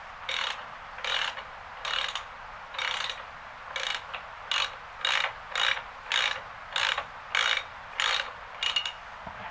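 Hand ratchet wrench clicking in about a dozen short back-and-forth strokes, speeding up from about one a second to nearly two a second. A loosened exhaust manifold bolt is being run out.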